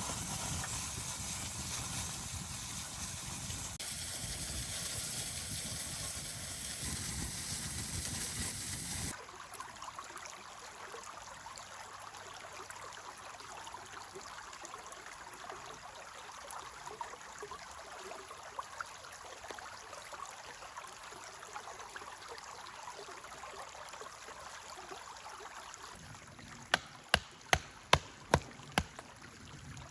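A stream running, a steady rush of water that drops abruptly to a softer level about nine seconds in. Near the end comes a quick run of sharp knocks, about two or three a second.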